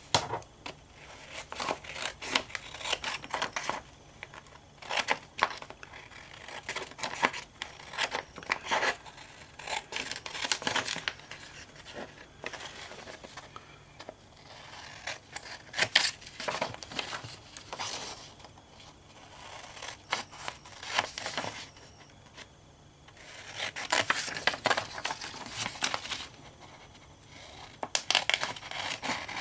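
Small craft scissors snipping through a sheet of printed paper: runs of quick, short snips in bursts, with brief pauses and the rustle of paper as the sheet is turned.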